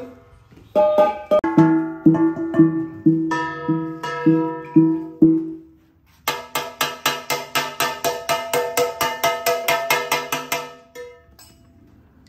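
Central Highlands (Tây Nguyên) bronze gongs struck and left to ring while their tone is tested for tuning. First comes a run of strokes on a low, ringing note; after a short pause a faster run follows, about five strokes a second, on brighter, higher-ringing tones, stopping about eleven seconds in.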